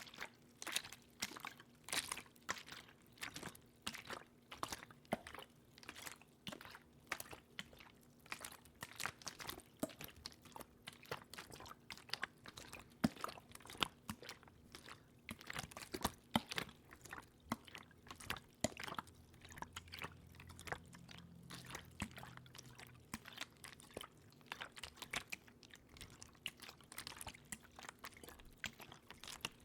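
Close-miked water sounds: irregular small drips and splashes, several a second, over a faint steady hum.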